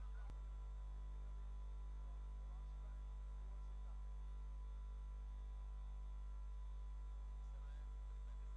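Steady low electrical mains hum, with a faint steady high tone above it. No rocket engine noise is heard.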